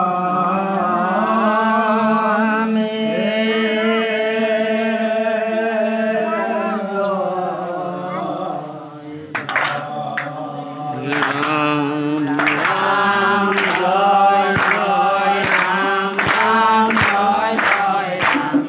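An elderly man's voice singing an Assamese devotional nam into a microphone, in long drawn-out wavering notes. About halfway through, regular sharp beats join in, a little over one a second, while the singing goes on.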